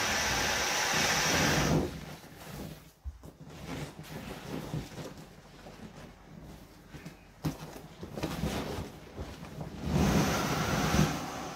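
Steady hiss of air rushing through the valve of an inflatable vinyl rocking horse, cutting off abruptly about two seconds in. Then soft, irregular vinyl rustling and creaking as the sagging toy is handled. Near the end comes louder rubbing and bouncing on the inflated vinyl.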